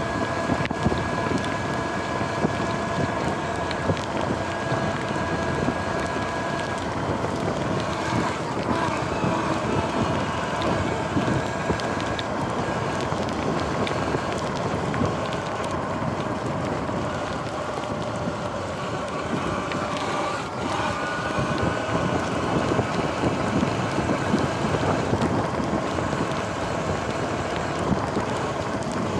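Electric dirt bike riding on a wet road: wind buffeting the microphone over the hiss of tyres on wet asphalt, with a faint steady whine from the electric motor.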